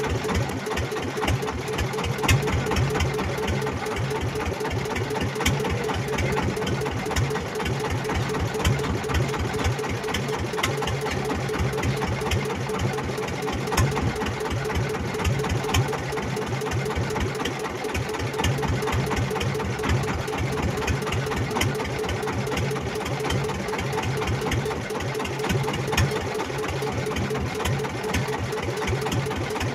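Small fishing boat's engine running steadily, a fast, even chugging throughout.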